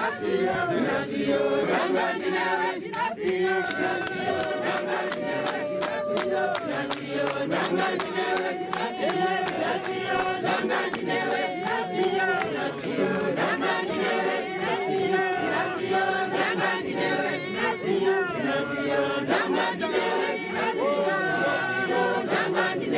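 Congregation singing together unaccompanied, many men's and women's voices overlapping in a chant-like hymn, with sharp clicks sounding through much of it.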